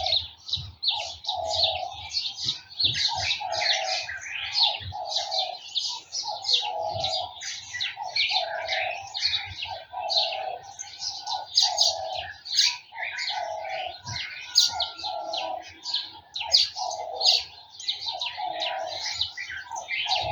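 Garden birds chirping and singing densely, with many quick high calls overlapping and a lower note repeating about once a second.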